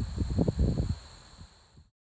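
Low, irregular rumbling noise on the microphone over a steady high-pitched hum. The sound cuts off abruptly near the end.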